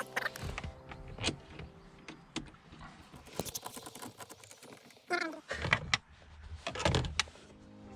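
Plastic interior trim around the gear lever being handled and fitted back into place: scattered clicks, knocks and rattles.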